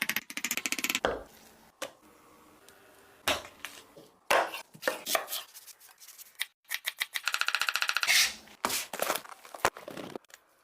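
Knife chopping food on a cutting board in several runs of rapid strokes, broken by short pauses and single knocks.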